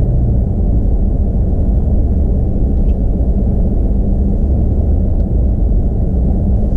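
Steady low rumble of a vehicle's engine and tyres on the road, heard from inside the cab while driving.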